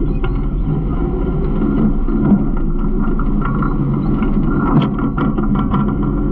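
Garbage truck running with a steady low rumble, heard from inside its rear hopper. A cluster of short rattles and knocks comes in the second half.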